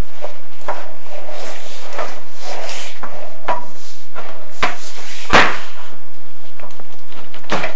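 Chimney inspection camera knocking and scraping against the clay flue tile as it moves through the flue: irregular knocks and clatters over a steady hiss, the loudest knock about halfway through.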